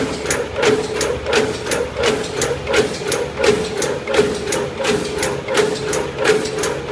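Paper fries carton forming machine running, a rhythmic mechanical clack about three times a second over a steady hum.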